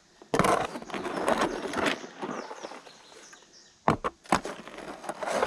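Square steel shovel scraping and turning wet concrete in a plastic feed tub, in rough strokes, with two sharp knocks about four seconds in.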